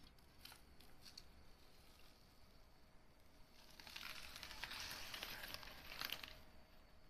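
A few faint clicks and taps. About three and a half seconds in, roughly three seconds of crinkling rustle, like plastic packaging being handled, ending with a sharper crackle.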